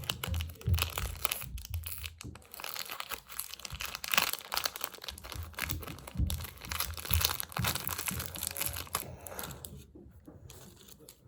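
Plastic wrappers of small collectible-toy packets crinkling and rustling as they are handled and torn open, with irregular crackles that die down near the end.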